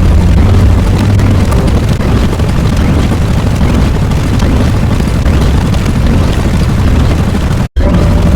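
Loud, continuous rumbling sound effect, heaviest in the deep lows, of the explosion or eruption kind. It cuts out for an instant near the end and starts again at once.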